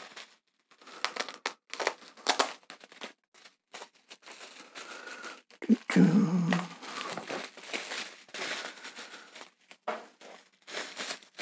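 Plastic bubble wrap crinkling in irregular bursts as its tape is cut and the wrap is pulled open. The loudest burst, about halfway through, is a duller, lower handling noise.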